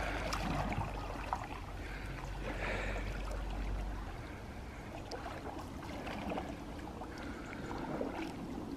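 Canoe paddles dipping into and pulling through calm lake water, with repeated splashes and drips from the strokes.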